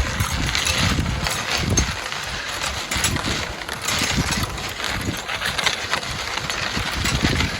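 Strong wind buffeting the microphone: an uneven, gusting low rumble with a rushing hiss.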